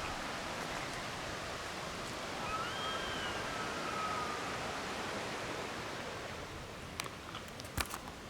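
A steady outdoor rushing noise, with a wild animal's drawn-out call rising and then falling in pitch about three seconds in. A few sharp clicks near the end.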